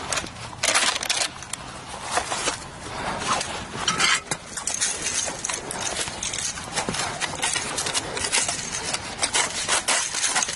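Irregular metal clicks and clatter of an MG 34/42-type machine gun being reloaded by hand, with the feed cover open and a cartridge belt laid into the feed tray, mixed with rustling of dry leaves under the gun.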